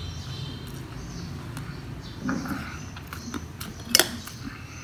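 Eating sounds: scattered small clicks of utensils and food, a brief louder noise about two seconds in and one sharp click just before the end, over a low steady hum.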